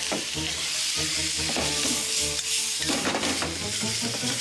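Squid, scallops and asparagus sizzling steadily in a hot oiled pan as they are stir-fried and stirred, with background music playing under it.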